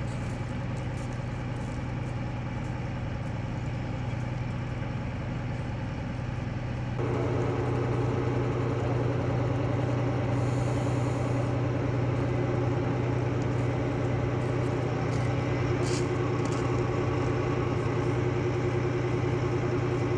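An engine idling with a steady low hum. About seven seconds in it grows louder as a higher, steady drone joins it.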